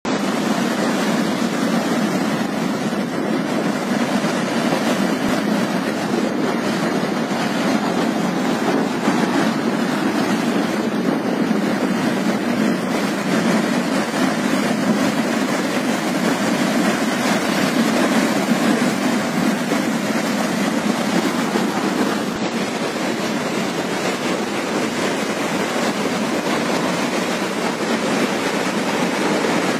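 River in flood: fast, muddy floodwater churning in large standing waves, heard as a loud, steady, deep rush of water.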